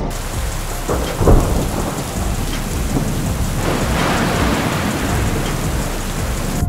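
Gale-force storm wind blowing: a steady rushing noise with a deep rumble, swelling in gusts about a second in and again around four seconds.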